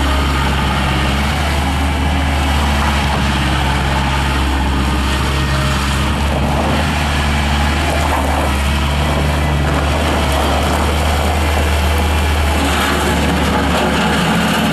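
A 1998 Scat Trak 1300C skid steer loader's 49 hp engine running steadily, its tone shifting slightly near the end.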